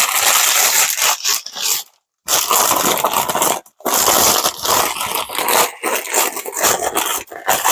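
Packing material being handled and crumpled while a parcel is unwrapped and searched, a rustling, crackling noise that stops briefly a couple of times.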